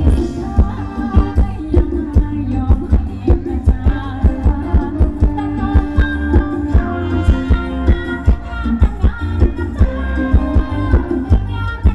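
Thai ramwong dance music played by a live band, with a singer over a steady, quick drum beat.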